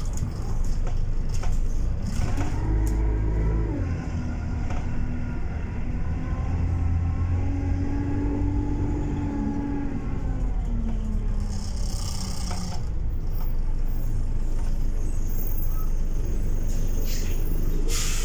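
Bus engine heard from inside the passenger cabin, running under load over a heavy low rumble, its pitch rising and falling as the bus speeds up and slows. Two short hissing noises come about twelve seconds in and again near the end.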